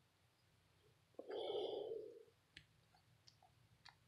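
Mostly quiet, with a few faint short clicks and one brief soft sound a little over a second in.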